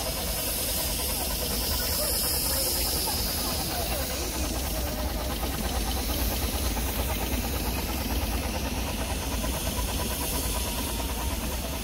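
Scale-model steam traction engine on the move, its steam hissing steadily over a low rumble.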